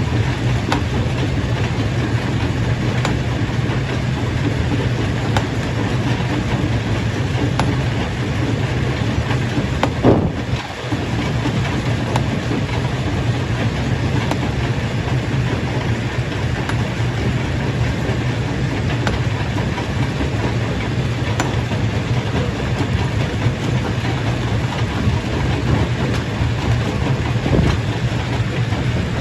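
Stone crusher running steadily: a loud low mechanical drone with a constant rattle and clatter of rock being crushed, and a brief louder knock about ten seconds in.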